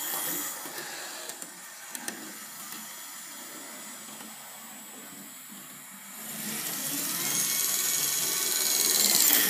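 OO gauge model trains running on track: a small electric motor whirring and wheels rattling on the rails, with a few clicks in the first couple of seconds. The running noise swells over the last few seconds as a train passes close by.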